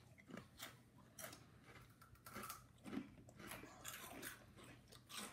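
Faint crunching of baked Flamin' Hot Limon Cheetos being chewed: an irregular run of short, crisp crunches.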